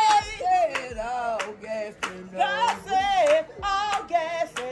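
A voice singing with wavering, sliding pitch over music, with sharp claps or beats scattered through it.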